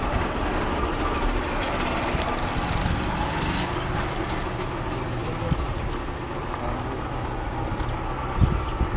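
Car engine running with road rumble as the car drives slowly. Rapid high ticking for the first three and a half seconds thins to scattered ticks, and there is a low thud near the end.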